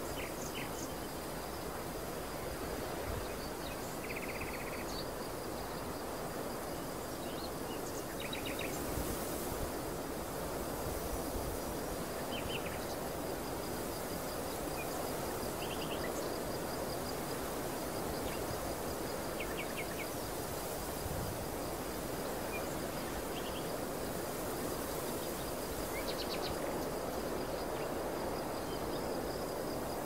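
Open-field outdoor ambience: a steady rushing noise like wind over the field, a continuous high insect trill, and short bird chirps scattered throughout.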